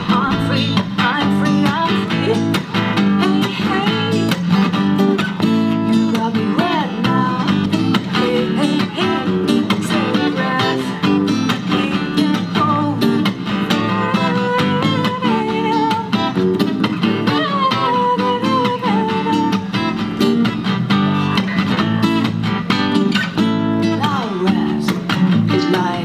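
Steel-string acoustic guitar strummed steadily through an instrumental passage of a song. A wavering melody line rides over the strumming about halfway through.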